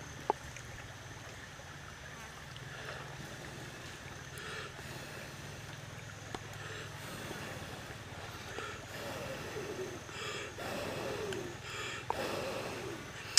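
A steady low hum over running water, and from about nine seconds in a run of short breathy puffs, like a person blowing or breathing hard.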